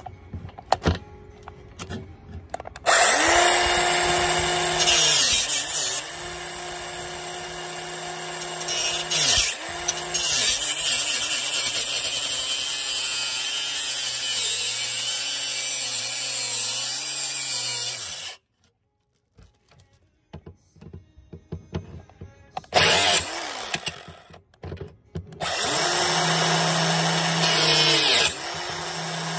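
Compact cordless circular saw cutting a railing rail: the motor runs steadily under load for about fifteen seconds, its pitch sagging and recovering as the blade bites, stops, then starts again briefly and once more near the end. Light handling clicks come before the first cut.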